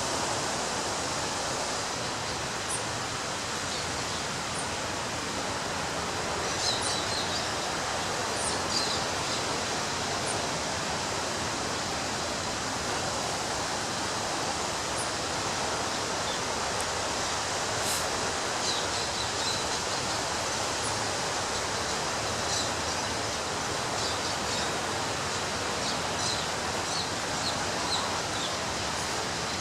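Ocean surf washing steadily onto a beach, an even rushing noise with no single crash standing out. Short high chirps come and go above it, in small clusters several times.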